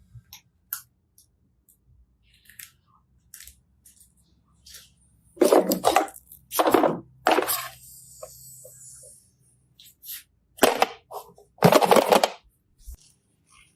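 Slime being squeezed and pressed by hand, giving scattered crackles and clicks, with five louder crackling squelches of about half a second each in the second half.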